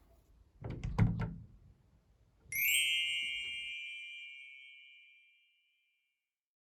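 A few soft knocks and rustles, then a single bright bell-like chime that starts suddenly and rings out, fading away over about three seconds.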